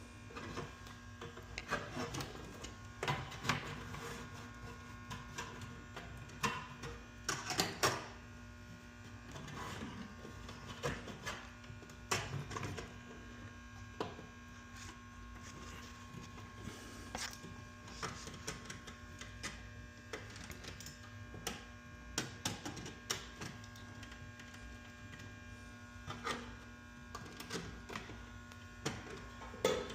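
Irregular small clicks and taps of hand work on the wiring of a fire alarm panel, over a steady electrical hum.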